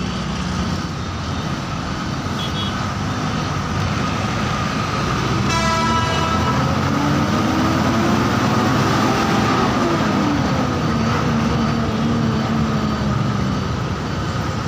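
Bus running on the road, its engine and road noise steady, with a short horn toot about five seconds in. The engine note then rises for a few seconds and falls back near the ten-second mark as the bus accelerates and eases off.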